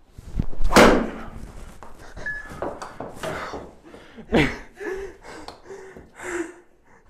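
A TaylorMade SIM driver strikes a golf ball, and the ball smacks into the simulator's hitting screen, one loud sharp impact less than a second in. Voices and laughter follow in the second half.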